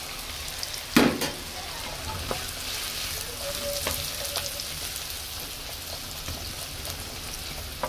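Diced butternut squash and sliced red onion sizzling in hot oil in a pan, stirred with a wooden spatula that scrapes and taps the pan. One sharp knock about a second in is the loudest sound.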